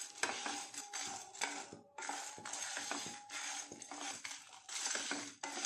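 A spatula stirring whole spices (dried red chillies, coriander seeds, peppercorns and cumin) as they dry-roast in a nonstick frying pan. The spatula scrapes the pan and the seeds rattle against it in quick irregular clicks, with a brief pause about two seconds in.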